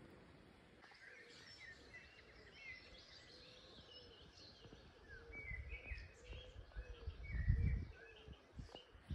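Small birds chirping and singing faintly, many short high calls, over a low rumble on the microphone that swells about seven and a half seconds in.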